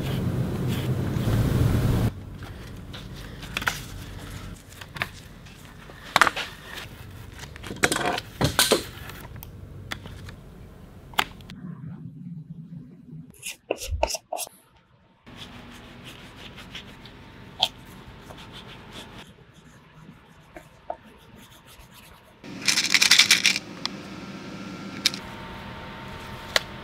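Close handling sounds of leather sheath work: a steady rushing noise for the first two seconds, then scattered scrapes, rubs and small sharp clicks. About halfway through come a few light metallic clinks from a metal tin of leather balm, and a few seconds before the end a louder rushing rub lasting about a second.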